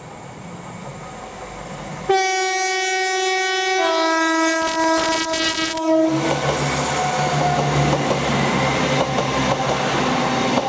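Train two-tone horn: a higher note about two seconds in, stepping to a lower note about two seconds later, each held for roughly two seconds as the train draws closer. The train then passes close by at speed, its wheels rumbling and clattering loudly over the rails.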